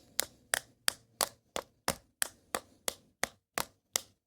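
A steady, even train of sharp clicks or taps, about three a second.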